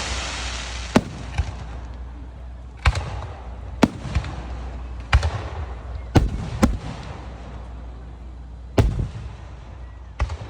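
Aerial fireworks bursting overhead: about nine sharp bangs at irregular intervals of roughly a second or two, some followed by a crackling hiss, with the crackle of an earlier shell fading away at the start.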